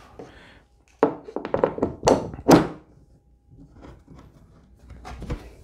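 Steel bar clamp being set down on a wooden board on a plywood workbench and tightened: a cluster of thunks and knocks starting about a second in, the loudest about two and a half seconds in, then softer handling sounds as the clamp is screwed down.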